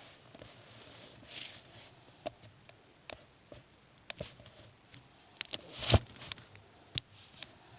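Scattered light taps and clicks of handling a paper model on a tabletop, with a brief rustle of paper about a second in and one louder thump about six seconds in.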